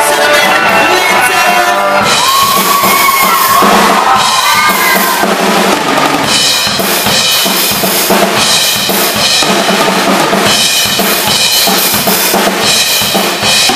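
Live rock band music: electric guitar, then about two seconds in the drum kit takes over, with bass drum, snare and cymbals played hard.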